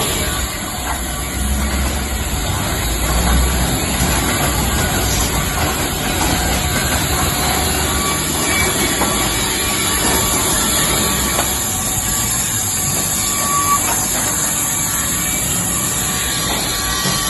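Two Rhino band resaws running, a loud, steady mill noise with a hiss on top. A low rumble under it eases off about seven seconds in.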